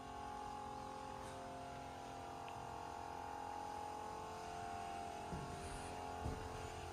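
Quiet background music of sustained, slowly changing chords.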